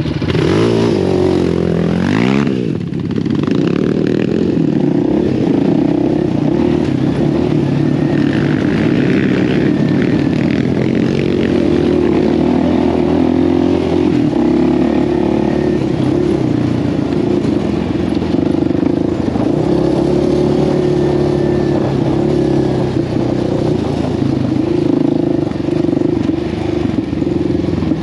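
Quad (ATV) engine running under throttle on an off-road trail; the revs rise and fall in the first three seconds, then hold at a fairly steady note with small surges.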